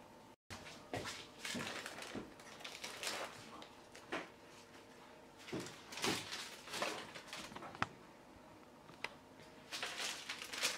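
Baking paper rustling and crinkling in short bursts as it is peeled off a baked sponge cake sheet and handled, with one sharp click about two-thirds of the way through.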